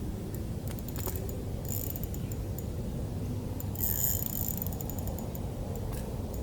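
A fishing reel's gears and drag ticking while a hooked trout is played through the ice, with a brief louder rasp about four seconds in. A steady low rumble sits underneath.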